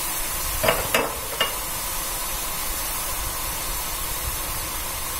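Boondi (drops of gram-flour batter) deep-frying in hot oil in a steel kadai: a steady sizzle, with a few short knocks about a second in.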